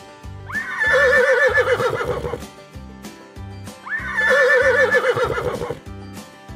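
A horse whinnying twice, each call about two seconds long, opening with a quick rise in pitch and then quavering, over background music with a steady beat.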